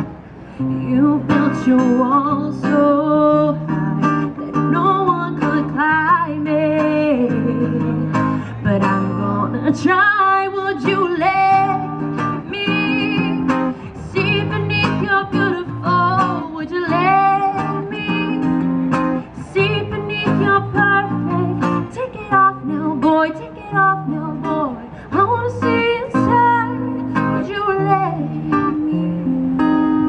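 Live amplified acoustic set: a woman sings a melody into a microphone while an acoustic guitar is strummed alongside, both heard through PA speakers.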